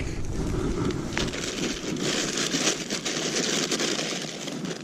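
Close, continuous crackling and rustling with many small clicks, from hands handling fishing tackle and bait near the microphone.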